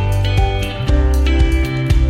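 Background music led by plucked guitar with a steady bass, notes struck about twice a second.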